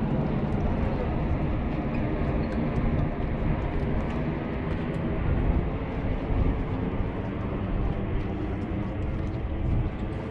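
Steady low rumble of a boat's twin Yamaha outboard motors running, mixed with wind on the microphone.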